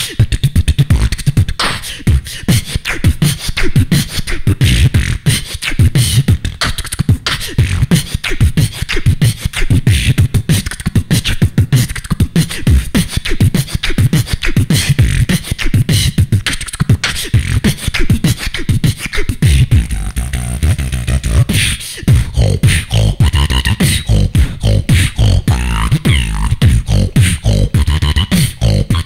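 Solo human beatboxing into a handheld microphone: a fast, dense run of mouth-made drum sounds, with deep bass hits and sharp high clicks. From about twenty seconds in, pitched hummed tones weave between the beats.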